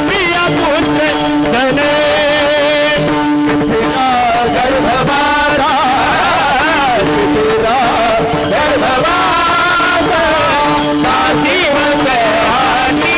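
Devotional kirtan bhajan: a singing voice with wavering, ornamented notes, accompanied by small brass hand cymbals (taal) struck in rhythm.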